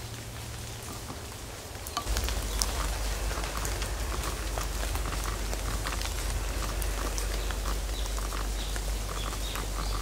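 Rain falling in a forest, pattering on leaves with many separate drops ticking, over a low steady rumble. It grows louder about two seconds in.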